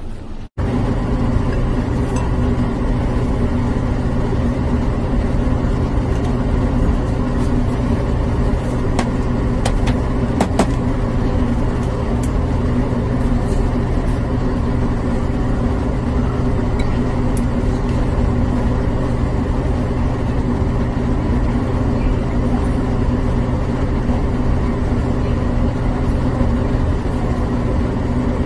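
Steady mechanical hum of laboratory equipment, a motor or fan running at constant speed, with a few faint clicks.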